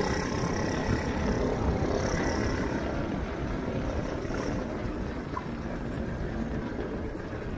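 Shifter go-kart being driven along the road: a steady, dense low rumble of engine and wind noise at the helmet-mounted camera, easing a little toward the end.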